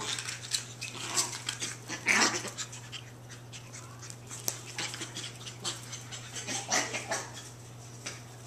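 Two longcoat chihuahua puppies playing: short breathy puppy noises, the loudest about two seconds in, with scattered light clicks and scuffles.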